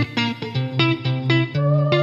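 Background music: a quick, regular run of plucked notes over a steady low bass line.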